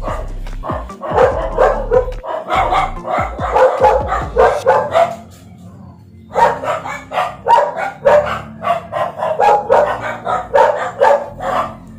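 A small dog barking rapidly and over and over, several yaps a second, breaking off for about a second just past the middle before starting again.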